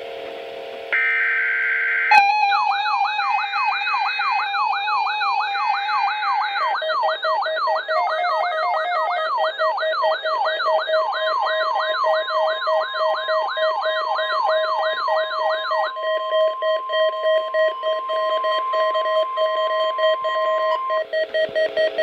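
Electronic alert siren: a warbling tone that sweeps up in pitch over and over, about two or three times a second, over steady beeping tones. About two-thirds of the way through the sweeping stops and a steady tone is held. Near the end several tones pulse together.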